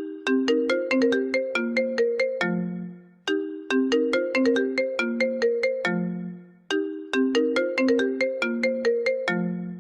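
iPhone ringtone playing: a short melody of quick plucked notes, each phrase ending on a lower note that fades, repeating about every three and a half seconds.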